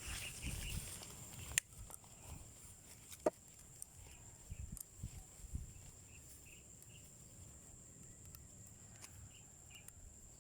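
Quiet outdoor ambience: faint rustling steps at first, a sharp click about a second and a half in and a louder snap with a short ring about three seconds in, over faint repeated high chirps and a steady thin high whine.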